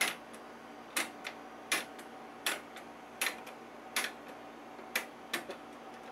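The mechanical preset push buttons of a 1940 Philco 40-180 console radio being pressed one after another. There are about nine sharp clicks, roughly one every second or less, some followed by a lighter click. Under them is a faint steady hum, and no station comes through: the set is receiving nothing.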